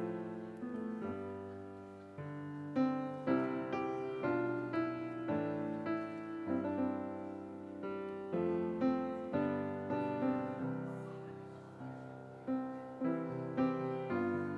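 Solo grand piano playing a slow, gentle piece, with notes and chords struck and left to ring and die away in phrases, in a reverberant church.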